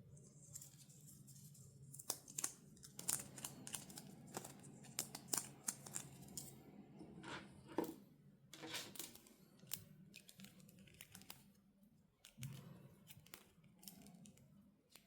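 Toy packaging being handled and opened by hand: a run of short clicks, snips and crinkles of cardboard and plastic, starting about two seconds in and thinning out near the end.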